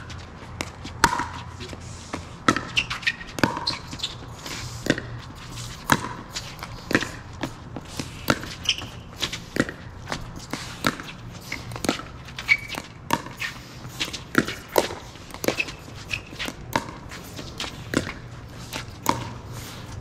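Pickleball paddles popping the hard plastic ball back and forth in a doubles rally, a sharp hit roughly every second, with ball bounces and footsteps on the court between them.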